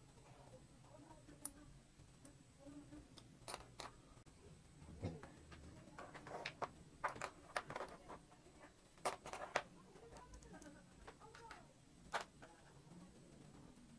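Faint scattered clicks and taps of oscilloscope probe leads and alligator clips being handled and hooked up, thickest in the middle of the stretch, over faint room tone.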